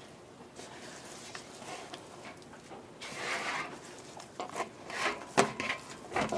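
Hands turning and rubbing an oiled ball of bread dough in a stainless steel bowl: soft rubbing and scraping, with a few short knocks against the bowl about five to six seconds in.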